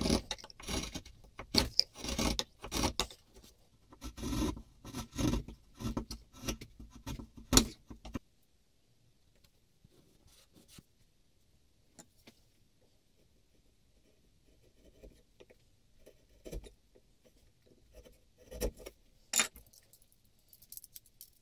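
Chisel paring beech inside a wooden plane's mouth opening: a quick series of short scraping, shaving strokes that stops about eight seconds in. After that only quiet handling, with a few soft knocks near the end.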